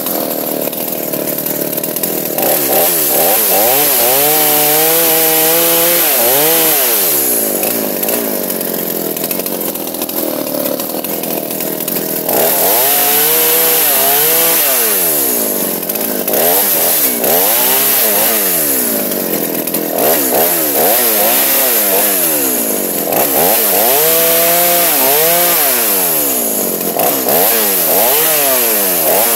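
Two-stroke chainsaw running hard, its engine pitch rising, holding and dipping again and again as it cuts wood.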